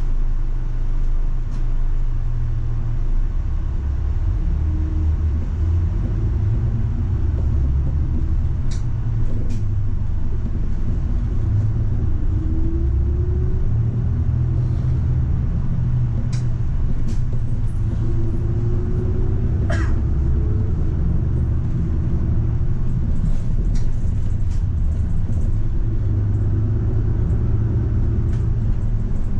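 Route bus running, heard from inside the cabin: a steady low engine and road rumble, with the engine note rising twice as the bus picks up speed. A few sharp clicks are scattered through it.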